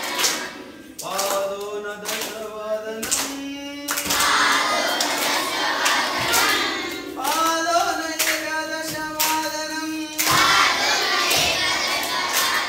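A large group of children singing a Sanskrit song together while clapping their hands in time. Clear sung lines alternate with busier stretches where many voices and claps mix.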